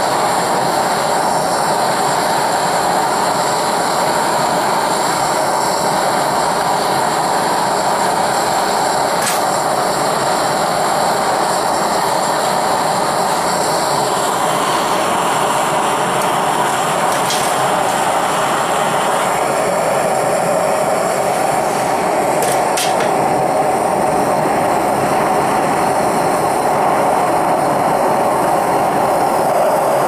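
Propane torch burner firing a small melting furnace, a loud, steady rush of flame. A few faint clicks of tools on metal are heard in the middle and later part.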